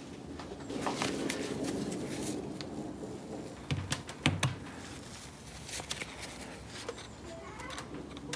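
Scattered small clicks and taps as a pin is pressed home into a Rover P5B gear lever's plastic spherical bush with a slim tool, among rustling of gloved hands.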